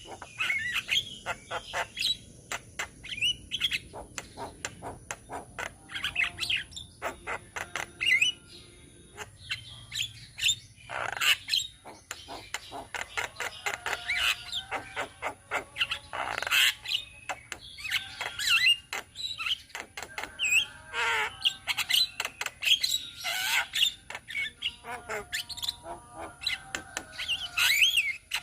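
A group of Javan mynas chattering and calling together: a dense, continuous jumble of sharp chirps, clicks and short whistled notes.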